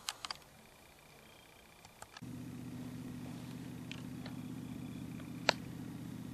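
A few sharp clicks of camera handling, then a steady low mechanical hum that starts abruptly about two seconds in and holds on, with one more sharp click near the end.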